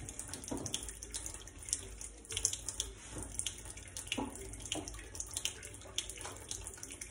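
Soft, sticky white-bread yeast dough being folded and lifted out of a metal bowl with wet gloved hands: irregular wet squishing and sticking sounds.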